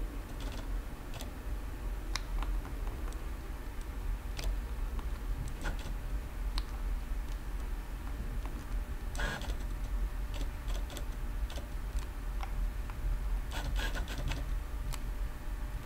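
Autofocus motor of a Fujifilm GF55mm f/1.7 lens driving focus back and forth in short ticking, whirring spurts, picked up close by a camera-mounted microphone, mixed with clicks of the camera's controls as the focus point is moved. The lens is audible but quieter than most GFX lenses.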